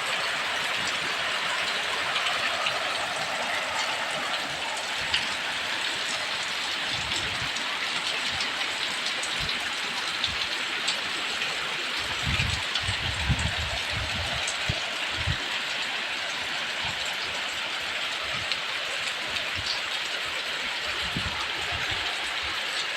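Heavy rain pouring down steadily, a dense even hiss. Low irregular rumbles of strong wind gusting on the microphone come in around the middle and again near the end.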